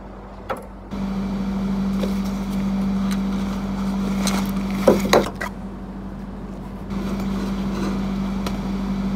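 A steady low machine hum, like commercial kitchen equipment running. About halfway through come a few knocks and rustles as a fabric tool bag is handled and packed.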